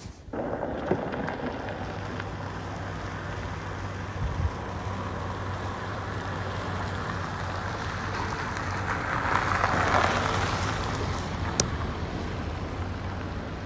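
A car driving on a loose gravel track: a steady engine note under a rushing noise of tyres on the loose surface, which swells about nine to ten seconds in. A single sharp click comes near the end.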